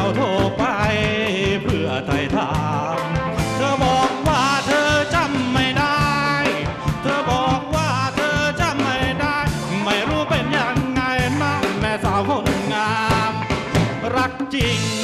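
Live rock band playing: electric guitars, bass, drum kit, congas and keyboard over a steady beat, with a gliding lead melody on top.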